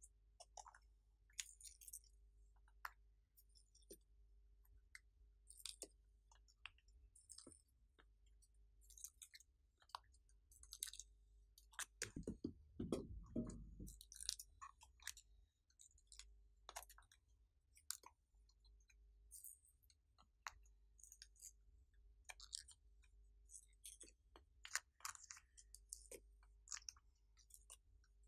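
Faint, scattered small clicks and crinkles as clay balls are picked out of a plastic mould tray and set down on slime topped with foam beads and sequins, with a louder rustling bump about twelve seconds in.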